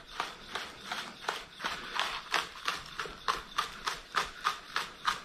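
Chef's knife slicing scallions on a wooden cutting board: a steady run of knife taps on the board, about three a second.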